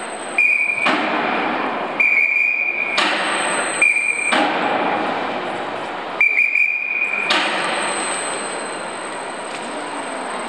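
Railcar lifting equipment being positioned: four short high beeps, each cut off by a sudden loud hissing burst that fades over about a second, over a faint steady high whine.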